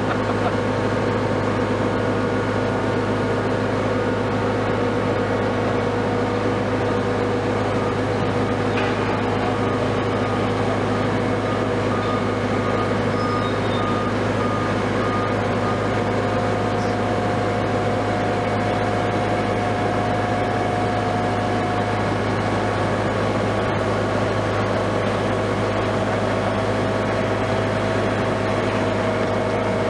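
Liebherr LTM 1750-9.1 mobile crane's six-cylinder diesel crane engine running steadily while the crane works its boom, a constant low hum with several steady whining tones over it.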